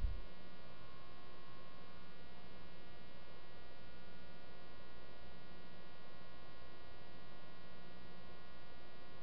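Steady electrical mains hum: an even buzz with many overtones, unchanging throughout, with no other sound over it.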